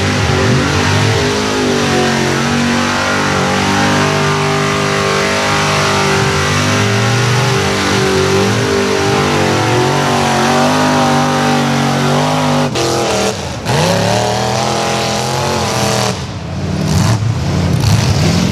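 Engines of lifted mud-bog trucks running hard at high revs as they churn through a deep mud pit. The revs waver as the tyres dig and spin. The sound switches abruptly from one truck to the next twice, with a sharp climb in revs after each change.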